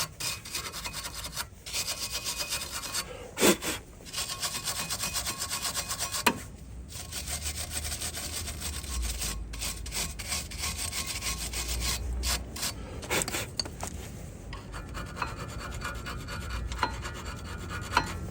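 Wire brush scrubbing the brake pad runners on a car's front brake caliper bracket: fast back-and-forth metal scratching with a few brief pauses, clearing out packed brake pad dust.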